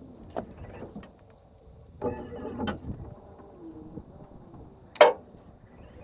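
Fishing gear being handled: scattered clicks and knocks, a louder creaking rattle about two seconds in, and one sharp knock about five seconds in.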